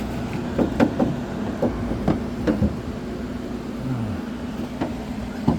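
Irregular knocks and clicks of hands and parts working inside a Nissan Navara D40's door at the handle mechanism, several in the first few seconds and one more near the end, over a steady low hum.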